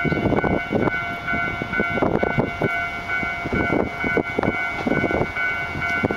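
Nankai electric train on the Shiomibashi line running past, with steady high-pitched tones over a low rumble. Strong wind buffets the microphone in irregular thumps.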